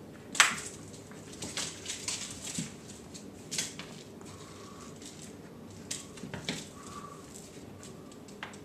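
Cat batting and chasing a toy mouse across the floor: an irregular run of short clicks, knocks and scuffles, the sharpest about half a second in.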